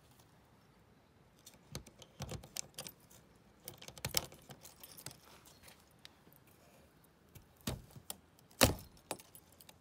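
A bunch of keys jangling and clicking as a key is pushed into the door lock of a 1959 Sprite Ariel caravan and turned. Two sharper clicks come near the end as the lock and lever handle are worked.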